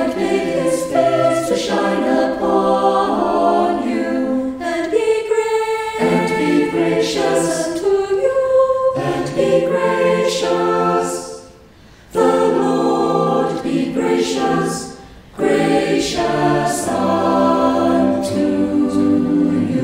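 Church choir singing a hymn in several voice parts, with two short breaks between phrases: one about halfway through and one about three quarters of the way in.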